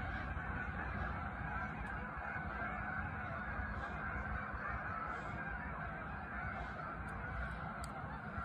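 A large flock of geese honking together in a dense, continuous chorus, no single call standing out.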